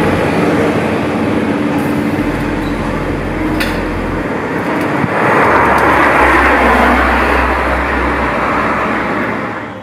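Road traffic going by, a steady rushing noise with a low hum under it. It swells louder from about five seconds in as a heavy vehicle passes close.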